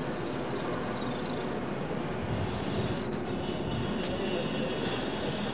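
Outdoor ambience with runs of short, high-pitched chirps repeating over a steady hiss.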